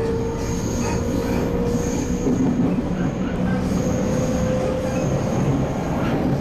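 A 311 series electric train running, heard from inside the passenger car: a continuous rumble of wheels and running gear under a single motor whine that climbs slowly in pitch as the train gathers speed.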